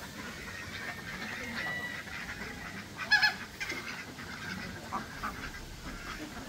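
A single loud, short animal call about three seconds in, with a few fainter calls before and after it over steady background noise.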